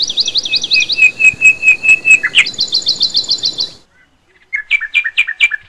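Birds singing in fast, evenly repeated high chirps. They stop abruptly a little under four seconds in, and a shorter run of notes follows about a second later.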